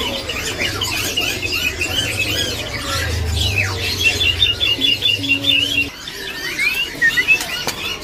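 Several caged songbirds chirping and whistling over one another, with short rising and falling calls and, in the middle, a quick run of about eight repeated notes. Under them a low steady hum stops about six seconds in.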